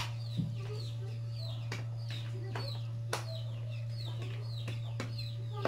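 Birds calling, likely chickens: a steady run of short, high, falling peeps, about three a second, with some lower clucking calls near the end. A steady low hum runs underneath, and a few sharp clicks come through, such as a fork touching a plate.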